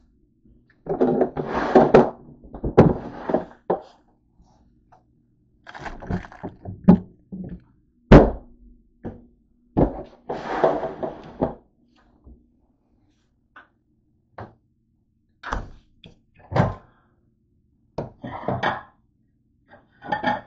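Kitchen handling noises: irregular knocks and thunks with stretches of rustling as things are moved about, and a plate handled inside a microwave near the end.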